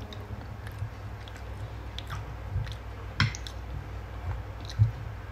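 A person chewing a mouthful of rice and fish close to the microphone, with light clinks and scrapes of a spoon and fork on a plate; the sharpest clink comes about three seconds in.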